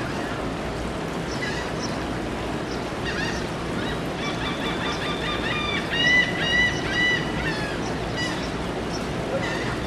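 Gulls calling, a string of short repeated honking cries, thickest and loudest for a couple of seconds just past the middle, over a steady background hiss.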